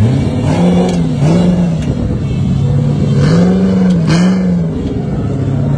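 Off-road buggy's engine revving up and dropping back about four times in short throttle bursts, with steadier running between, as it claws up a steep dirt slope.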